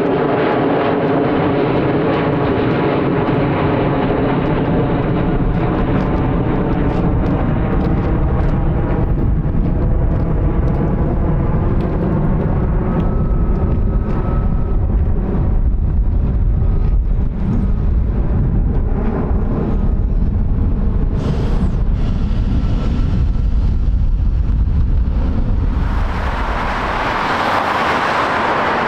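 Boeing KC-135 Stratotanker's four jet engines rumbling loudly as it climbs out overhead and moves away, with a wavering tone that slowly falls over the low roar. Near the end the sound changes abruptly to a steady broad hiss.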